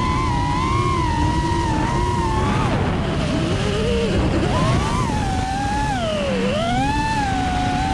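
FPV quadcopter's brushless motors and propellers whining, the pitch rising and falling with throttle and dipping twice, about three and six seconds in. Low wind and vibration noise on the onboard camera's microphone runs under it.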